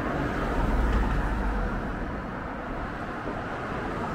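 Steady rolling rumble of a Onewheel GT electric board's tyre on a concrete sidewalk, mixed with wind across the microphone, heaviest between about half a second and two seconds in.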